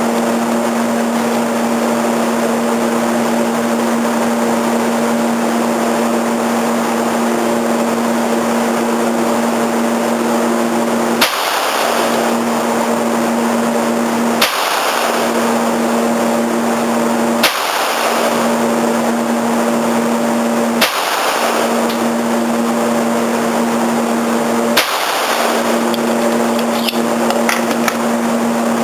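Five .22 rimfire pistol shots, evenly spaced about three seconds apart, over a steady loud droning hum that drops away briefly after each shot. A few light clicks come near the end.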